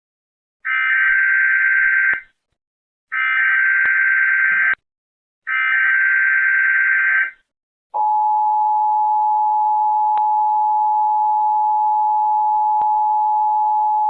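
Emergency Alert System test signal: three bursts of the SAME header's screechy digital data tones, each about a second and a half long with short gaps between, then the steady two-tone EAS attention signal starting about eight seconds in.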